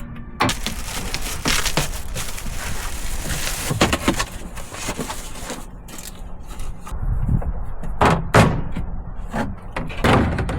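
Irregular knocks, clunks and handling noise from working on a plastic cargo box and its bolt-down hardware, with a few louder clunks about eight seconds in.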